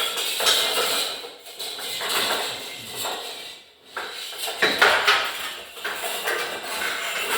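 Irregular clattering and scraping of objects being handled and shifted, a brief lull about two-thirds of the way through.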